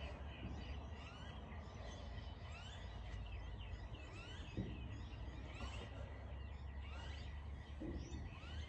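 Birds chirping outdoors: many short rising calls, repeated throughout, over a steady low rumble, with one soft knock about halfway through.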